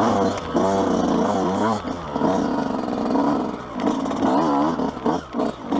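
Yamaha YZ125 single-cylinder two-stroke dirt bike engine under hard riding, its pitch rising and falling again and again as the throttle is worked on and off over rough trail.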